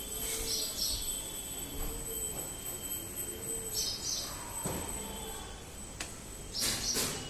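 A bird chirping in the background: a short, high double call repeated about every three seconds, over a steady faint high-pitched tone. A brief rustle near the end.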